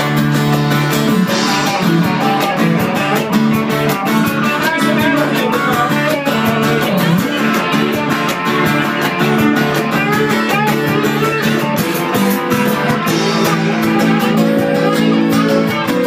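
A live band playing amplified guitar-led music with a steady beat.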